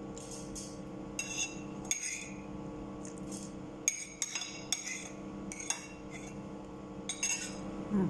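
Metal spoon and fork clinking and scraping on a ceramic plate in short, scattered strikes while the last of the noodles are scooped up.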